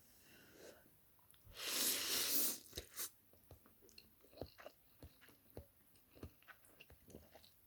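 A slurp of hot ramen, about a second long, then chewing with many small mouth clicks.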